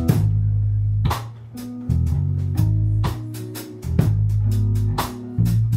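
Band music with bass guitar, guitar and a drum kit: held bass notes under sharp drum and cymbal hits.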